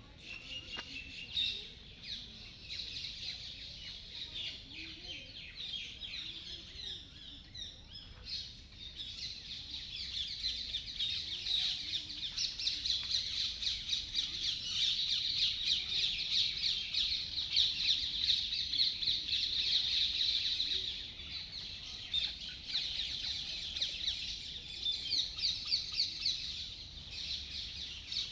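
Many birds chirping and calling together in a dense, continuous chorus of rapid high chirps. It thickens and grows louder about ten seconds in and stays busiest until a little past the twenty-second mark.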